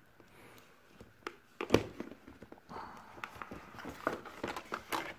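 Hands handling a smartphone and its rigid cardboard box: a few sharp taps and knocks, the loudest about one and three-quarter seconds in, then a run of light clicks and rustling of the box.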